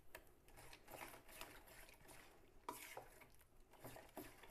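Faint wet swishing of a metal spoon beating thick batter in a bowl, with irregular light clicks of the spoon against the bowl.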